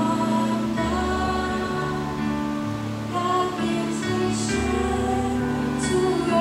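A woman singing a slow gospel song into a microphone over a soft accompaniment of held chords and a slowly moving bass line.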